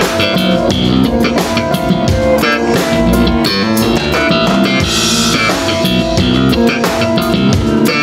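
A band playing a song with drum kit, bass guitar and guitar, and many drum hits over held notes.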